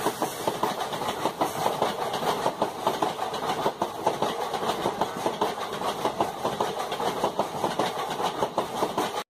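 Indian Railways passenger coaches running past on the adjacent track, their wheels clattering rapidly and steadily over the rail joints.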